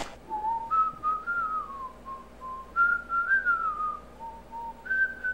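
A person whistling a slow tune: a single line of held notes that rise and fall in short phrases.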